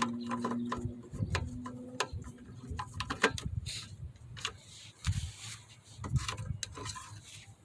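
Scattered light clicks and knocks of a lawnmower's oil dipstick and filler cap being handled as the oil level is rechecked.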